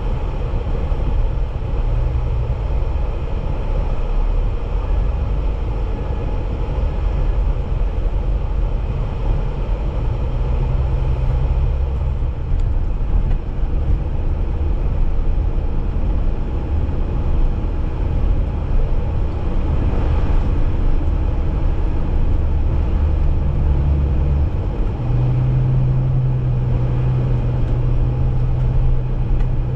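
A Jeep driving, its engine droning low under steady road and wind noise. The engine note shifts as it changes speed and holds a steadier, higher pitch near the end.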